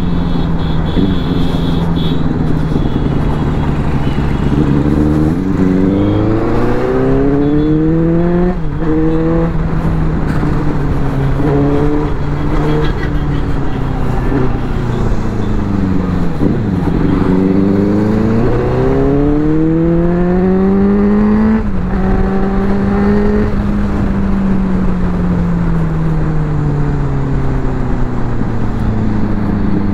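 Benelli superbike's engine heard from the rider's seat while riding, rising in pitch as it accelerates and dropping sharply at gear changes about 9 and 22 seconds in. Around the middle it falls away to low revs as the bike slows, then pulls up again.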